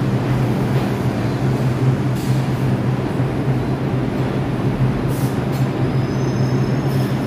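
Steady low hum and rumble of New York City subway trains in an underground station, one standing at the platform and another approaching down the track. A thin, high wheel squeal comes in near the end.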